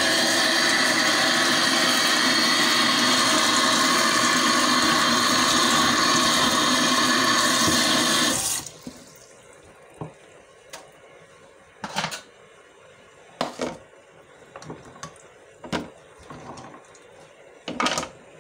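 Kitchen tap running hard into a steel bowl of dried herbs in a stainless-steel sink, cutting off suddenly about eight and a half seconds in. After that come a few light clicks and knocks as the herbs are handled in the water-filled bowl.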